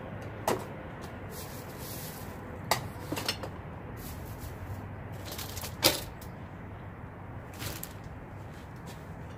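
Objects being handled, giving a few separate knocks and clatters, the loudest about six seconds in, over a steady low hum.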